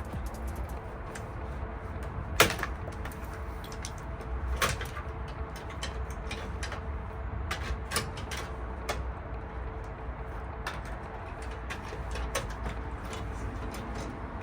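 Scattered light clicks and knocks over a steady low hum, with a sharper knock about two and a half seconds in.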